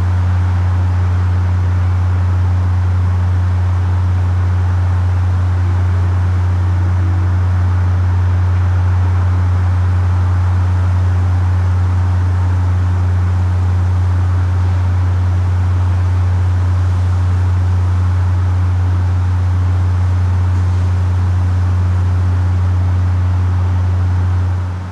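Steady, loud low-frequency hum with a fainter tone about an octave above it, over a constant hiss; an unexplained humming heard while Hurricane Sandy's winds passed.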